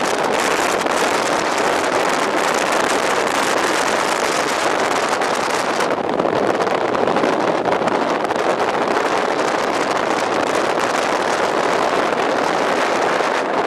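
Storm wind at Beaufort force 8–9 rushing over the microphone: a loud, steady roar, briefly duller about six seconds in.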